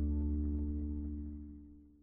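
The final chord of a song, on acoustic guitar over a low bass note, ringing out and fading steadily away to almost nothing.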